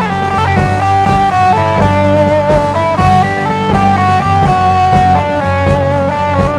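Psychedelic rock instrumental passage: an electric guitar plays a winding melodic line over steady bass notes.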